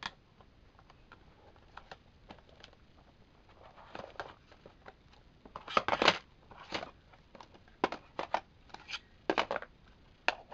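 Plastic eyeshadow compacts and palettes clicking and knocking against one another and against a plastic basket as they are handled and slotted into place, with scattered sharp clicks and a louder cluster about six seconds in.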